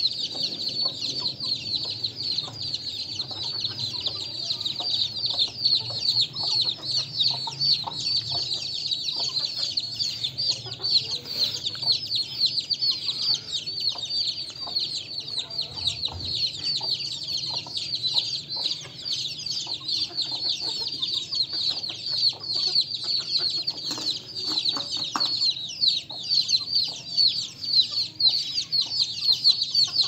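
Aseel chicks peeping steadily, many rapid high peeps overlapping, with a hen clucking now and then beneath them.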